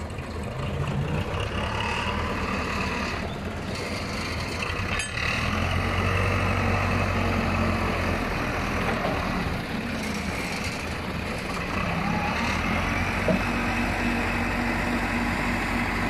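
Engines of a Case 580D backhoe loader and a forklift running at a steady idle, a little louder from about five seconds in.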